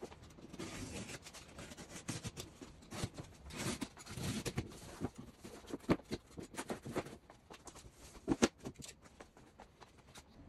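Large cardboard box being unpacked: packing tape cut with a utility knife and the cardboard flaps pulled open, a run of irregular scrapes, crackles and knocks.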